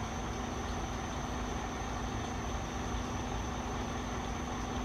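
Road vehicles idling at a closed level crossing: a steady engine hum over even background noise.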